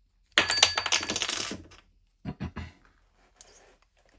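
Small metal lathe accessories clinking and rattling against each other in a dense jingle lasting about a second, with a faint metallic ring, followed by two or three short knocks.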